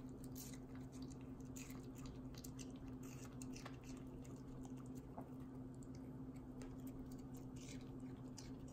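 A small Pomeranian puppy chewing pieces of raw red bell pepper: soft crisp crunches and wet mouth clicks at irregular intervals, over a steady low hum.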